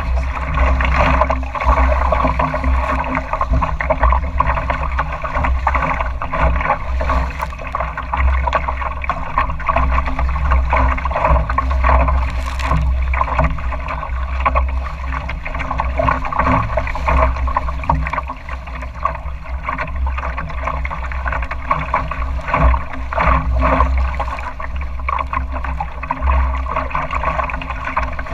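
Water splashing and rushing along the hull of a small sailing dory under way through choppy water. There is a steady low rumble of wind buffeting the microphone underneath.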